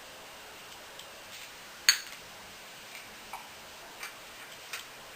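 A few scattered sharp clicks and taps, with one loud snap about two seconds in.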